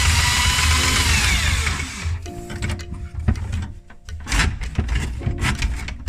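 Small electric power-tool motor running with a steady high whine, then winding down in pitch and stopping about two seconds in. Quieter music-like tones and light knocks follow.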